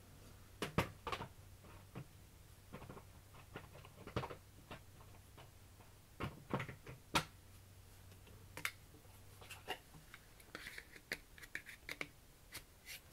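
Sparse light clicks and taps, irregularly spaced, over a faint low hum that stops about nine and a half seconds in.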